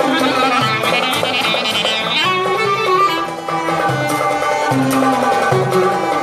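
Live Turkish folk ensemble of clarinet, violin and oud playing a melody together over low plucked oud notes. The clarinet breaks off briefly a little past halfway, then comes back in.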